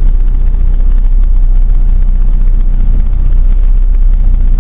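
Loud, steady low rumble of a vehicle, with no distinct knocks or changes.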